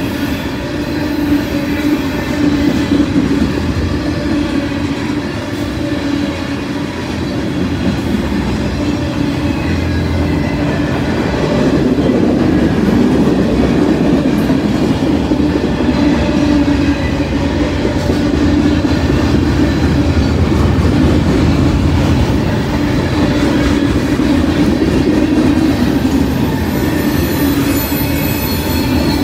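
Mixed freight train's cars rolling past steadily: continuous rumble and clatter of steel wheels on the rails, with a steady squeal from the wheels running through it.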